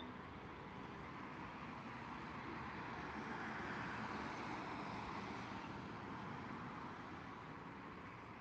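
A vehicle passing on a nearby road, its noise swelling to a peak about four seconds in and then fading away.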